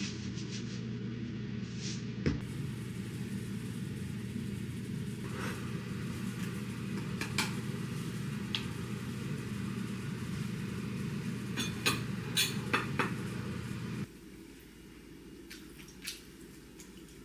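Kitchen work sounds: scattered clinks and taps of dishes and utensils, a quick cluster of them a little before two-thirds of the way in, over a steady low hum that stops abruptly near the end.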